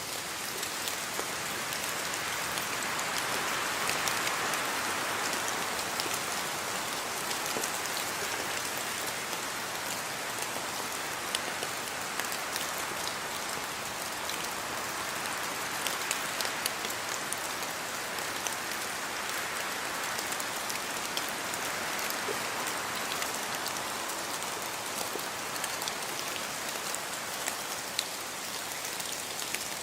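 Steady rain falling, an even hiss of rainfall with many individual drops ticking on a surface.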